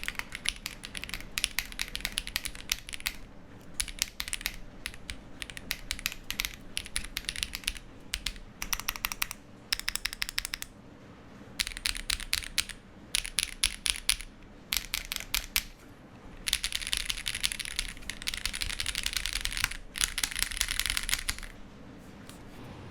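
Typing on a Ginkgo65 custom mechanical keyboard fitted with Zaku switches and GMK keycaps: runs of quick key clacks in bursts, with short pauses between them. The typing stops shortly before the end.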